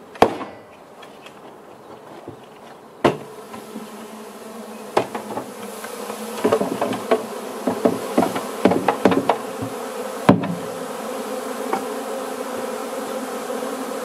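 A honey bee swarm being banged loose from a plastic bee-vacuum bucket and tipped into a wooden swarm box. There are sharp knocks at the start, about 3 s and 5 s in, a run of knocks in the middle and a loud bang at about 10 s. Under them the humming of stirred-up, agitated bees grows steadily louder.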